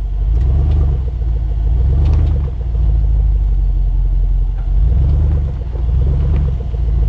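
Range Rover Sport's engine pulling under load in low range as the SUV crawls up a steep rocky slope: a steady low rumble that swells and eases every second or so.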